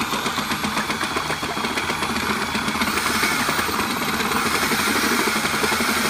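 Electric drill with a paddle mixer running fast in a tilted plastic 5-gallon pail, beating thick urethane coating with the steady churn of the paddle under the motor. It is breaking the settled sludge of the coating's part A into solution until no chunks are left, and gets a little louder about halfway through.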